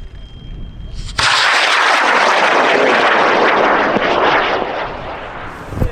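High-power rocket's L1000 motor igniting about a second in, then a loud roaring burn for about three seconds that fades as the rocket climbs away. A sharp thump near the end.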